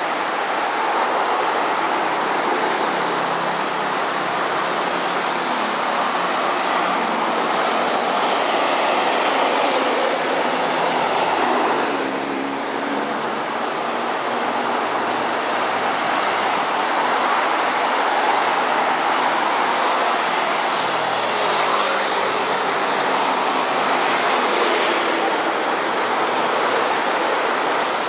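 Steady roar of city traffic mixed with the running of an elevated MRT train, with faint sliding tones in places.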